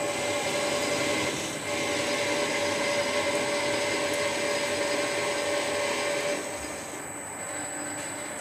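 Warco 280V metal lathe turning a steel bar, the cutting tool taking a heavy cut to reduce its diameter: a steady machine noise with a steady whine. About six seconds in the cutting noise drops away, leaving the lathe running on more quietly.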